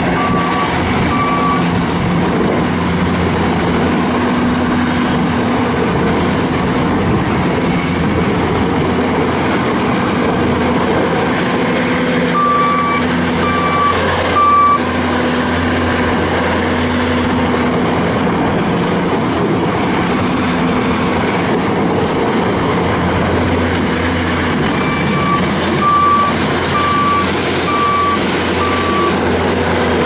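Bobcat S590 skid steer's 66 hp turbo diesel engine running as the loader drives and turns. Its backup alarm beeps in short runs: a couple at the start, three about twelve seconds in, and about five near the end.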